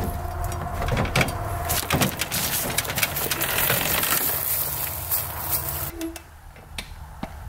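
A 1980 Suzuki RM125 dirt bike being rolled off a pickup bed down a metal loading ramp, with knocks, clanks and rattles of the bike on the ramp and crunching of dry leaves underfoot. The noise stops about six seconds in, once the bike is on the ground.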